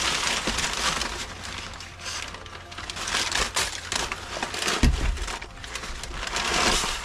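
Crumpled kraft packing paper crinkling and rustling as it is pulled away from a steel swivel seat base, with one dull thump about five seconds in as the heavy base is set down on the floor.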